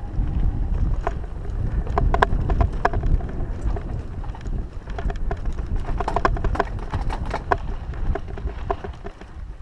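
Mountain bike rolling down a rough dirt and sand trail: a steady low rumble of tyres and wind on the microphone, with bursts of sharp clicks and rattles from the bike jolting over bumps.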